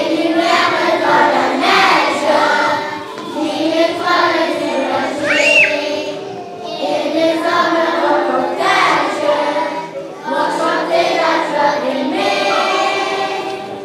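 A children's choir singing together in sung phrases, with short dips between them.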